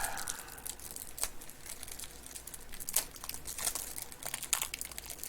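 Crinkling and tearing of wrapper packaging as a sealed trading card box is opened, in many short, irregular crackles.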